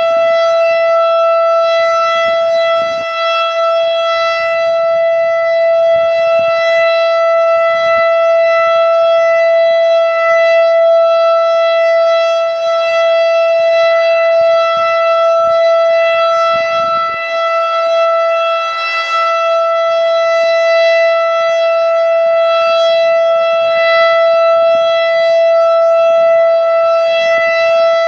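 Federal Signal STH-10A mechanical outdoor warning siren sounding one steady, loud tone with strong overtones, holding the same pitch without rising or falling.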